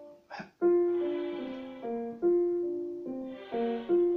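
Digital piano played: a repeated phrase of a held note followed by a few quick descending notes, coming round about every second and a half.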